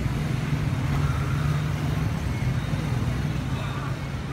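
Steady low rumble of street traffic, with faint voices in the background.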